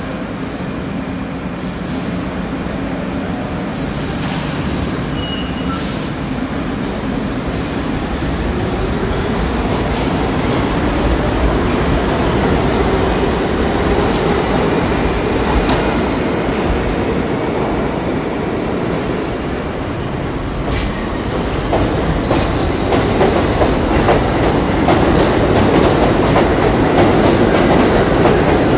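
New York City subway train pulling out of the station. Its motor whine rises in pitch as it gathers speed, and near the end the wheels click over the rail joints faster and faster as it grows louder.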